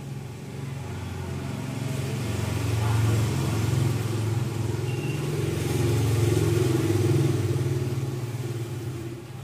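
Motor vehicle engine running off-screen, swelling louder twice and fading away near the end.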